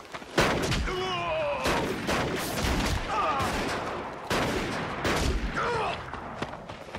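Revolver gunfire: a string of loud shots over about five seconds, with short wavering cries between them.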